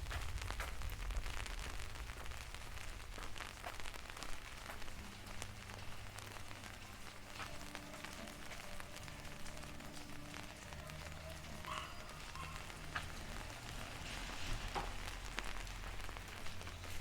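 Steady rain falling and pattering on surfaces, with many small drop ticks, over a low rumble and a faint hum.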